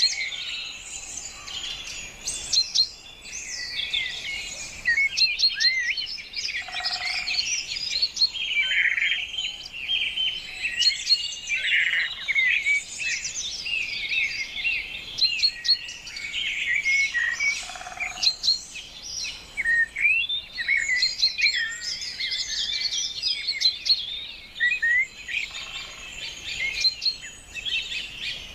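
Many birds chirping and calling at once, a dense, continuous chorus of short high chirps and whistles.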